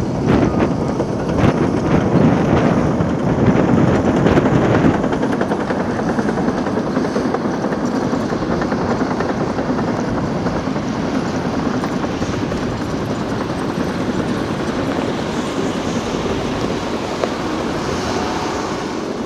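MAN four-axle dump truck driving slowly over gravel: diesel engine running with tyres crunching on the stones. Louder with crackling in the first five seconds, then a steadier, slightly quieter rumble.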